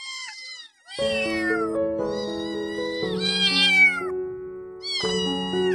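Kittens meowing repeatedly in high-pitched, falling calls, over background music with sustained notes that comes in about a second in.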